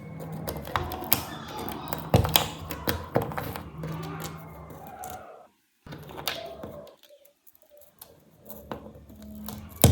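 Small clicks, taps and knocks of hand work on a phone's parts and tools, over a low steady hum. The sound cuts out briefly twice past the middle.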